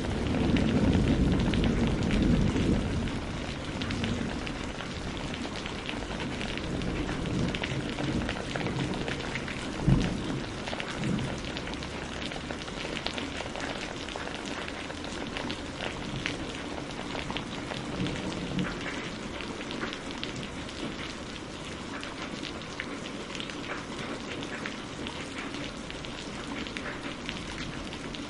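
Steady thunderstorm rain falling and pattering, with a roll of thunder rumbling and fading away over the first few seconds and a single short, sharp thunder crack about ten seconds in.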